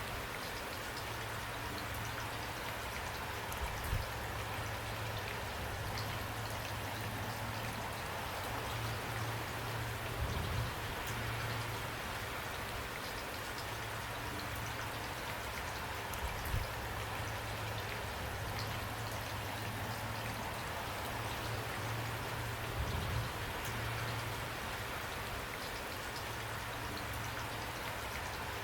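Steady rain falling, a dense even hiss with scattered drops ticking through it, over a low steady rumble, with a soft thump every six seconds or so.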